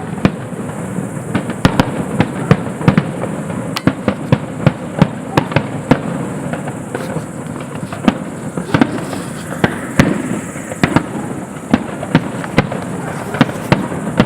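Fireworks display: a rapid, irregular run of sharp bangs and cracks, several a second, over a constant noisy background.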